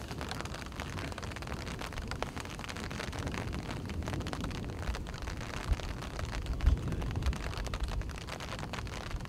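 Outdoor field ambience: a steady hiss over a low rumble, with two stronger low thumps a little past the middle and faint scattered crackles.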